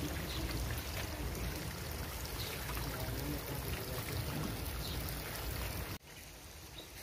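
Steady rushing outdoor noise with a heavy low rumble, cutting off abruptly about six seconds in to a much quieter background.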